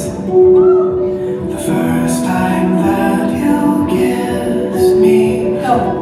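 Music: a slow song with a sung vocal line and long held notes.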